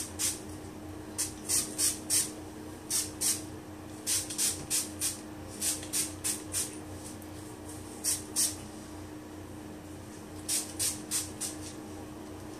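Hand-pump spray bottle of hair product spritzing onto hair, in quick runs of several short hissing sprays, about four or five a second, with short pauses between runs.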